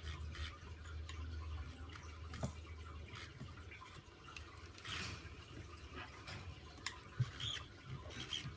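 Faint, scattered clicks and short scrapes of a flathead screwdriver prying a stuck-down ESC off a plastic RC car chassis, a little at a time, over a low hum that stops about three seconds in.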